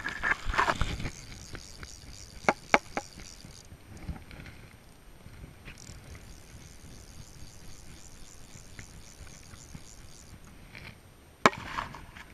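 Fly reel's click ratchet whirring in two stretches of about four seconds each as line is wound, with a rustle of handling at the start, a few sharp knocks against the boat about two and a half seconds in, and one more sharp knock near the end.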